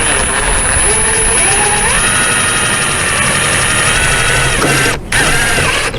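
Power drill driving a rubber-washered screw through a sheet of metal roofing, the motor running steadily and rising in pitch about two seconds in, with a brief stop about five seconds in before it starts again.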